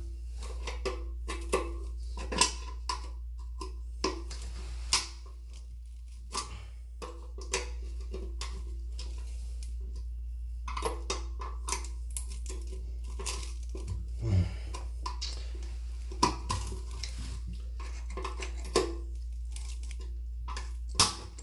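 Metal hand tools clinking and scraping on a toilet's closet bolt: a wrench working the nut while a screwdriver pries under the bolt, which turns along with the nut and will not come off. Irregular sharp clicks throughout, over a steady low hum.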